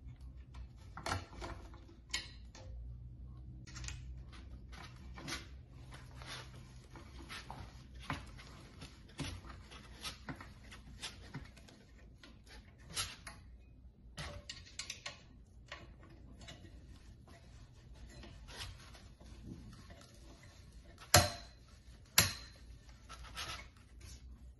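Light clicks, scrapes and taps of a flat-pack side table being assembled by hand, with the black metal frame and hardware knocking against the wood-look panel. Near the end come two sharper knocks about a second apart.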